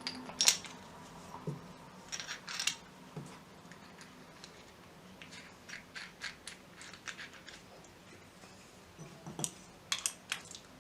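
Scattered light clicks and metallic clinks of small metal tools being handled on a workbench.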